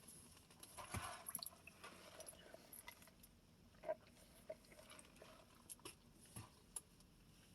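Faint chewing and mouth sounds: a few soft wet smacks and small clicks, most of them clustered about a second in, the rest scattered and quiet.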